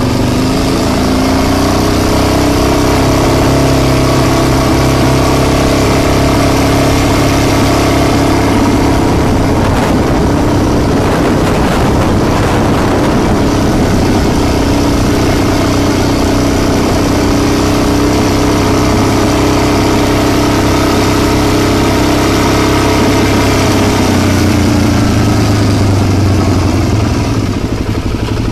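Motorcycle engine running as the bike rides up a winding mountain road, with steady wind and road noise. The engine note climbs over the first couple of seconds as it accelerates, wavers as the throttle changes partway through, and dies down just before the end.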